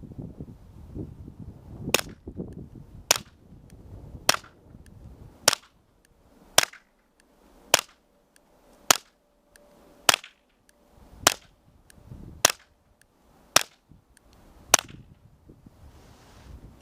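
Twelve suppressed .22 LR pistol shots from a Smith & Wesson M&P 22 fitted with a Tactical Solutions Axiom suppressor. The shots are evenly spaced a little over a second apart and are sharp, short cracks, definitely hearing safe.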